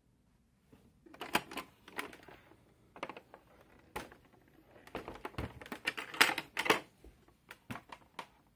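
Irregular plastic clicks and clacks as a hand grips and moves the carry handle on top of a portable television's plastic cabinet. The clatter is loudest about six to seven seconds in.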